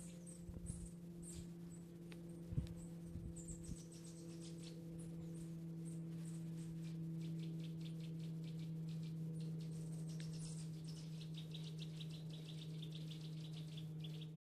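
A steady low hum, with short high chirps like a small bird's repeating over it and coming in quicker runs in the second half. A few low knocks come a few seconds in.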